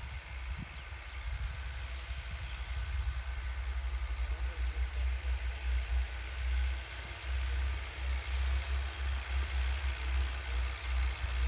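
Diesel tractor engines working under load as a Massey Ferguson 385 and an ATS 290 pull disc harrows. The sound grows louder over the first few seconds as they come closer.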